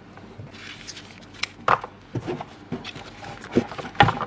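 Hands handling unboxing packaging and small plastic accessories: scattered clicks and taps with a light paper rustle, the loudest knocks near the end.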